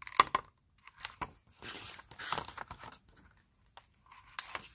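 Pages of a hardcover picture book turned by hand: paper rustling and flapping in several short bursts.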